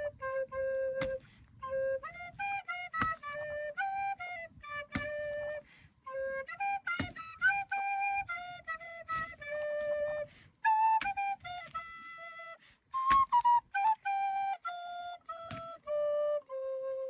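Background music: a slow flute melody of held and stepping notes, with a light percussive hit about every two seconds.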